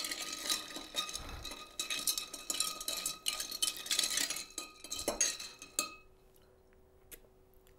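Ice cubes clinking and swirling in a glass mixing glass as a cocktail is stirred down with a metal bar spoon, the glass ringing; the stirring stops about six seconds in.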